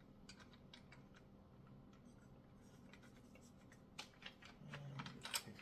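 Near silence with scattered faint clicks and light ticks of small metal bike-stand parts being handled and fitted, with a few sharper clicks about four seconds in and just before the end.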